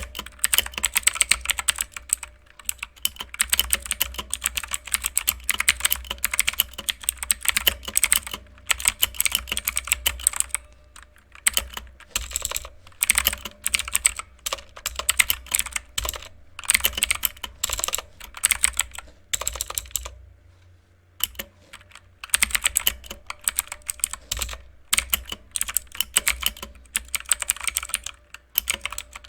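Mechanical keyboard with clicky blue switches typed on rapidly, a dense run of sharp clicks. The typing pauses briefly about 11 seconds in and again for about two seconds around 20 seconds in.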